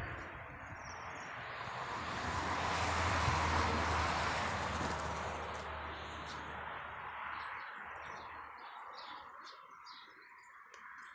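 Strong wind gusting over the microphone, a rushing rumble that swells about three seconds in and dies away after about eight seconds. Small birds chirp faintly in the second half.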